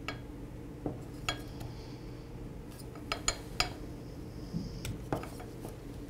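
Light clicks and clinks of a small metal carburetor and its gasket being handled and fitted against a trimmer's plastic housing: scattered sharp clicks, three in quick succession about three seconds in, over a faint steady hum.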